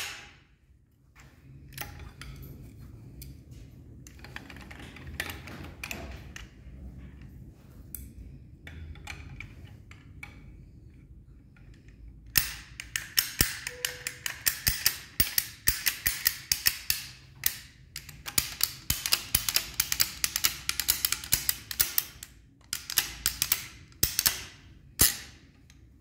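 Hand lever pipe bender working a PEX-Al-PEX multilayer water pipe. Light scattered clicks and knocks come as the pipe is handled in the former. About halfway in, a fast, steady run of sharp clicks from the bender begins as its handle is squeezed over and over and the pipe bends.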